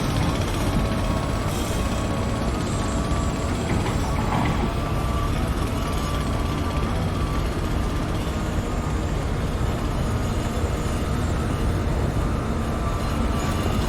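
Heavy construction machinery running steadily: a deep engine rumble with a steady, slightly wavering whine over it.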